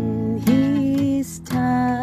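Background music: strummed acoustic guitar chords with a gliding melody line over them, dropping out briefly about a second and a quarter in.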